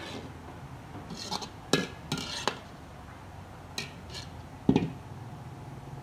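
Metal kitchen utensils clinking and knocking against pots and dishes at a street-food stall: a scatter of sharp strikes, the loudest one about three-quarters of the way through, over a steady low hum.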